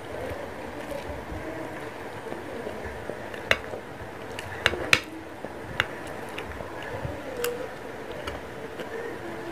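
Eating sounds: a handful of sharp, scattered clicks and taps as metal chopsticks work noodles in a frying pan, over a steady low hum.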